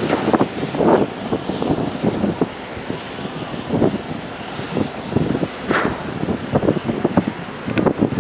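Vehicle in motion: steady road and wind noise with many irregular knocks and thumps through it.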